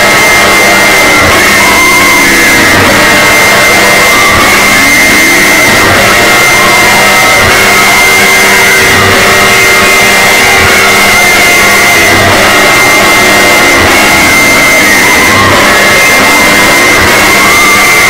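Mock emergency alert (EAS) alarm, overdriven to constant clipping: a steady high alert tone layered with swooping siren glides and a low pulse about every one and a half seconds, all harshly distorted and extremely loud.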